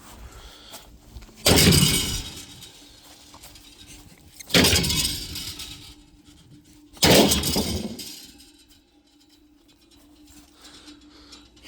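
A refrigerator being smashed: three heavy crashing impacts about three seconds apart, each followed by a rattle that dies away.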